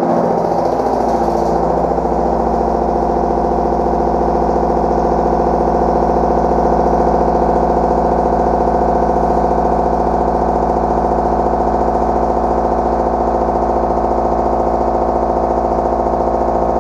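A long-overhang Tungaloy TungTriShred indexable shoulder mill with TCMT-NMJ inserts cutting into a metal block in a CNC machine. It makes a loud, steady pitched ringing hum that wavers for the first couple of seconds, then settles.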